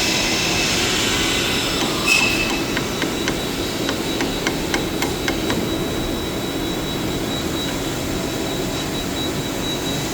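Machine-shop machinery running with a steady drone and a thin high whine, with a sharp metallic knock about two seconds in followed by a quick run of sharp metallic clicks, about three a second, that stop around the middle.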